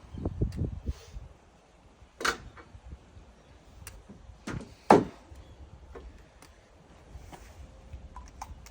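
Handling noise as a timber post is marked out: a rumble of the wood being moved, then a few sharp knocks of a tool set down on the timber, the loudest about five seconds in.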